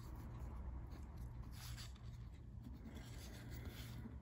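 Trading cards sliding and rubbing against one another as they are thumbed through by hand, a faint soft scraping with a couple of louder swishes, over a steady low hum.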